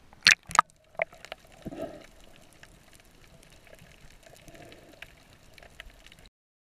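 Water splashing twice as the camera plunges through the sea surface, then the muffled underwater sound of the sea heard through the submerged camera, with scattered faint clicks; it cuts off abruptly a little past six seconds in.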